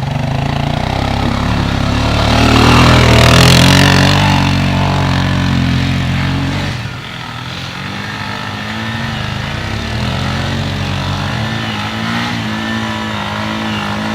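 ATV engine running under throttle: it builds to its loudest about three seconds in, drops off suddenly about seven seconds in, then carries on at a lower level with its pitch rising and falling.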